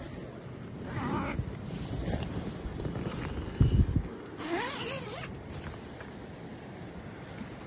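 Tent fabric rustling and being handled, with a couple of dull bumps, then the tent door's zipper pulled open in a quick rising zip about four and a half seconds in.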